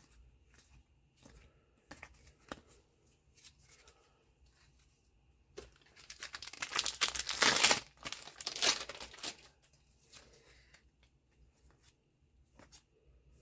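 Light card-handling ticks, then, about six seconds in, a trading-card booster pack wrapper is torn open and crinkled loudly for about three and a half seconds before settling back to faint handling.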